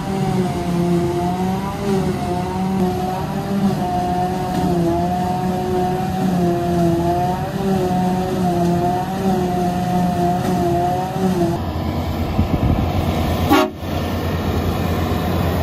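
Claas Jaguar forage harvester working, a loud drone whose pitch wavers slightly. About twelve seconds in it gives way to the lower, rhythmic thrum of a JCB Fastrac tractor pulling away with a loaded silage trailer, with one sharp knock shortly after.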